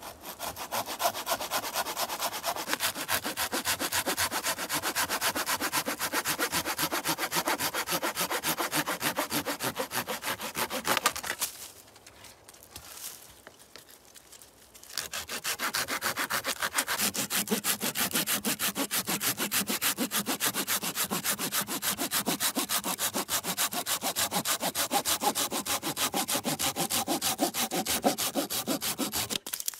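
Hand saw with a wooden handle cutting through a fallen branch in quick, even back-and-forth strokes. The sawing stops for about three seconds near the middle, then resumes until just before the end.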